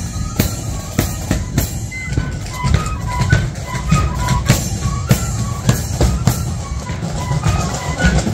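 Marching flute band playing a tune: many flutes in unison carry a quick melody over a steady marching beat of bass drum and cymbals, about two beats a second.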